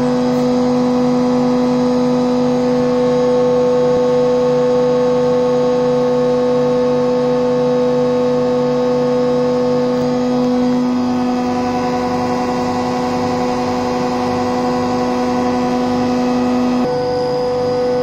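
Steady machine hum of an HVAC plant room's running electric pump motors and variable-frequency drives: a constant low tone with a strong overtone an octave above and several fainter steady tones. The mix of tones changes slightly near the end.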